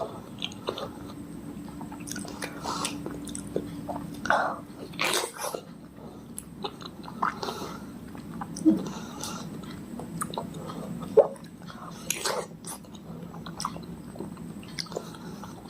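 Close-miked chewing and biting of soft fresh fruit, with irregular wet smacks and mouth clicks.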